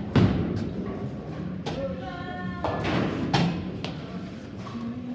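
Bowling alley: several sharp, heavy thuds and knocks of bowling balls and pins, the first one the loudest, over background music.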